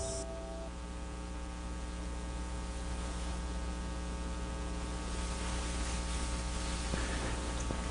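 Steady electrical mains hum with a light hiss, unchanging throughout.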